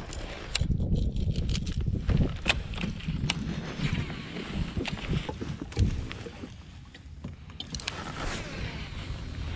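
Kayak on open water: low rumble of wind on the microphone and water against the hull, with a scattering of sharp clicks and light knocks from rod, reel and boat handling. It is loudest in the first half and eases off after about six seconds.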